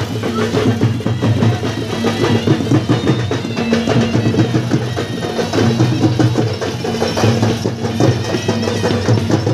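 Drums playing a fast, steady beat as festival music.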